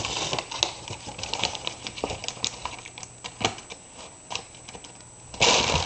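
A white paper Baskin-Robbins bag crinkling and rustling as a hand moves it and the cat noses at it: a run of short, sharp crackles, with a louder burst of rustling near the end.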